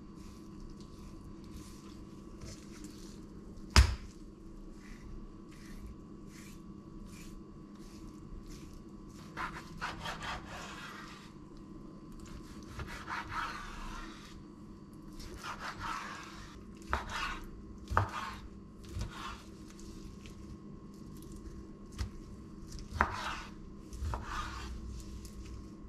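Knife cutting raw chicken breast on a wooden cutting board: longer scraping strokes as the blade is drawn through the meat, and short knocks as it meets the board. The loudest is a single sharp knock about four seconds in.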